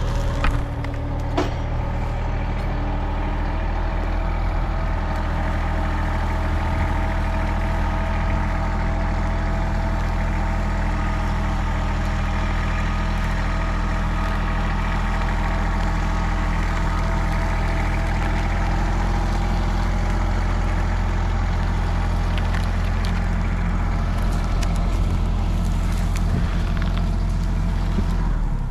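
Engine running steadily at a constant speed, most likely the Kubota tractor's engine, with a couple of sharp knocks in the first two seconds.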